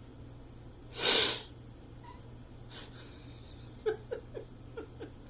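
A single harsh cough, about half a second long, about a second in. A few faint, short sounds dropping in pitch follow near the end.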